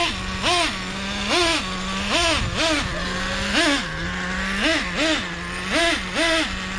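Traxxas Revo 3.3 truggy's small nitro two-stroke engine idling, with about ten quick throttle blips that each rise in pitch and drop straight back to idle.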